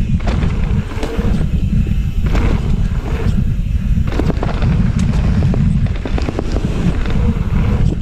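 Wind buffeting the mountain bike's helmet-mounted camera microphone on a fast dirt-trail descent, with many sharp knocks and clatter from the bike hitting bumps.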